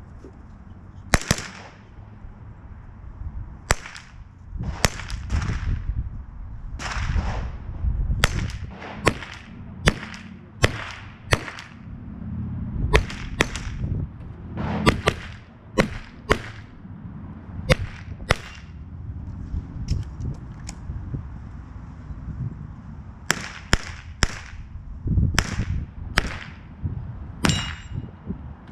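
About two dozen shots from a .22 rimfire rifle, sharp cracks fired singly and in quick pairs with short pauses between strings. A few are followed by a faint ring.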